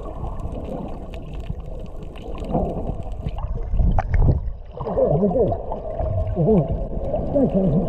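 Swimming heard underwater: muffled rushing and bubbling water as swimmers dive, swelling loudest about four seconds in. In the second half, wavering, bending tones come and go several times.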